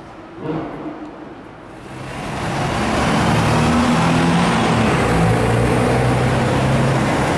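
Ferrari 599's V12 engine driving up close in city traffic. Its steady engine note grows louder from about two seconds in, then holds loud, over a background of traffic noise.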